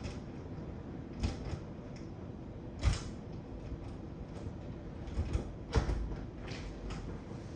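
A series of sharp creaks and knocks, about half a dozen, the loudest about three seconds in and again near six seconds, over a low steady hum.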